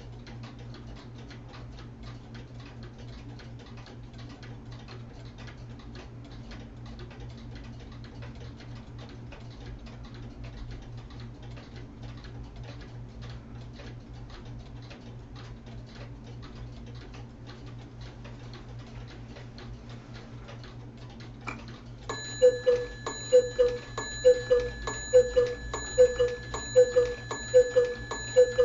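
Weight-driven locomotive-shaped cuckoo clocks ticking steadily. About 22 seconds in, the Choo Choo clock's train sound starts: a loud rhythmic chugging pulse, about one and a half beats a second, over a steady high tone.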